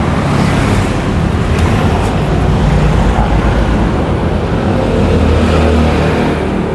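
Motor vehicle engine noise from road traffic, a steady low hum with no break.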